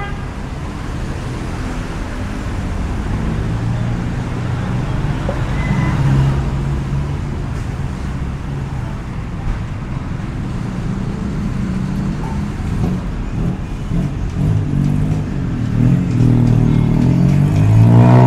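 City street traffic: motor vehicle engines running close by, with one engine getting louder and rising in pitch near the end.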